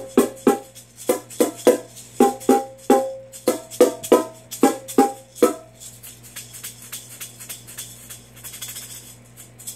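A pair of bongo drums struck in a quick rhythm, about three hits a second, alternating between a lower and a higher drum. The hits stop about five and a half seconds in, and a maraca is then shaken softly.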